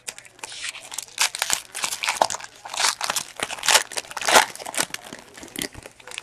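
Foil wrapper of a football trading-card pack being torn open and crumpled by hand: a run of irregular crinkling and crackling.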